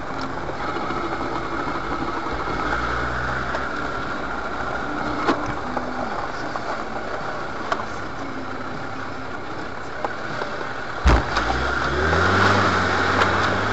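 4x4's engine running steadily at low speed over a rough track, heard from inside the cabin, with a few clicks and rattles. A sharp thump comes about eleven seconds in, then the engine picks up with its pitch rising.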